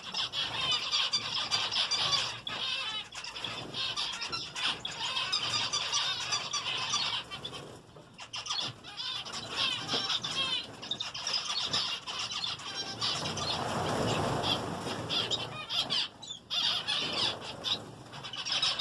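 A flock of small aviary finches, mainly zebra finches, chattering with a constant stream of short, high chirping calls that thin out briefly twice. About two-thirds of the way through, a lower rushing noise rises under the calls for about two seconds.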